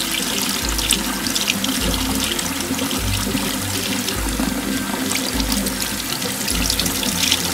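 Water running from a bathroom tap in a steady thin stream into a ceramic sink, splashing.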